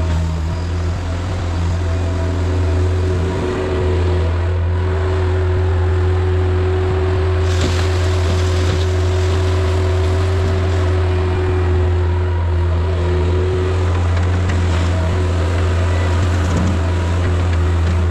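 Skid steer engine running steadily, with a constant low hum and a steady higher whine. A stretch of harsher, scraping noise comes in about seven and a half seconds in.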